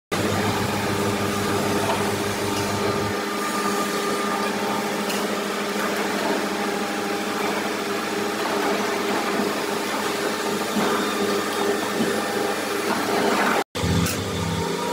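Crawler-mounted mobile stone crusher's power unit running with a steady mechanical hum as the machine is driven on its tracks by remote control. A deep low rumble under the hum drops away about three seconds in, and the sound cuts out for a moment near the end.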